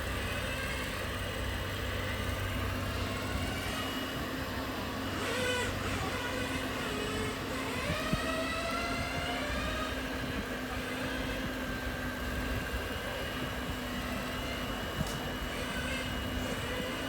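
Small electric motors and gearboxes of radio-controlled model trucks and machines whining, several at once, their pitch rising and falling as the models speed up and slow down.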